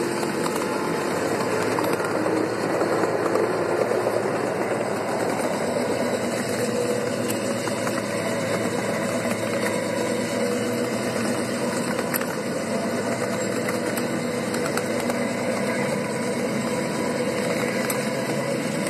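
Engine of a ride-on scale locomotive running steadily under way, with wheels rolling on the rails and scattered sharp clicks.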